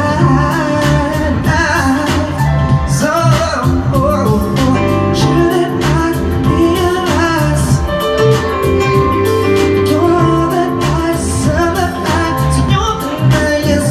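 Live R&B/soul performance: a man singing into a microphone while playing a digital piano, with a steady bass line under the melody.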